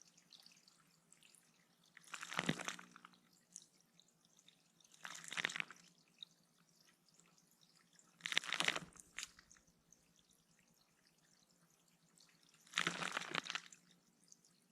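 A small bird bathing in a shallow bird pond: four short bouts of splashing a few seconds apart, with faint dripping water between them.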